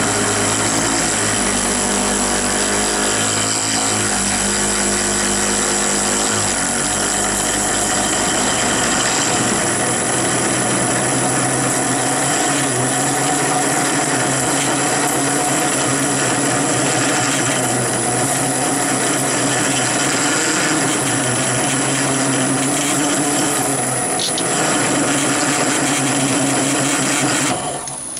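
Chinese mini lathe running under load while a 3/4-inch HSS twist drill bores into 316 stainless steel: a steady, loud mix of motor running and drill cutting. The noise drops abruptly just before the end.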